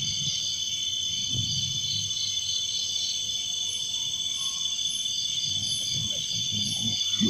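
Night chorus of crickets and other insects: a steady shrill drone with rapid chirping pulses running through it. From about halfway, a higher chirp repeats roughly once a second, over a faint low murmur.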